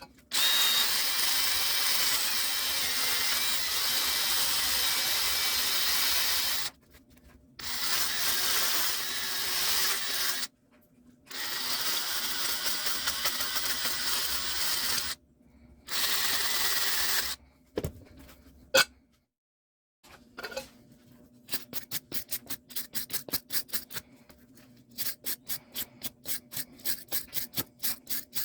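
A small power tool run in four bursts of a few seconds each, cleaning rust off old needle-nose pliers, then two sharp clicks and rapid hand rubbing or filing strokes on the metal, about four a second.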